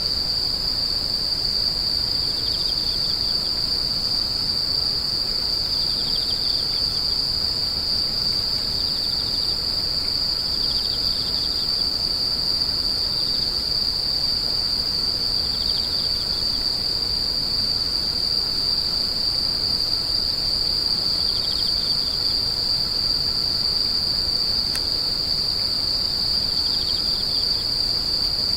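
Grass insects calling in chorus: one unbroken, high-pitched shrill trill. A fainter, lower chirping call comes in short groups about every four or five seconds.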